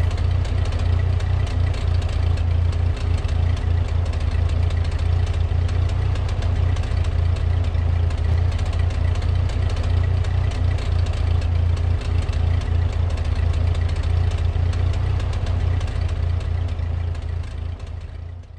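1946 Ford 2N tractor's flathead four-cylinder engine idling steadily, fading out near the end.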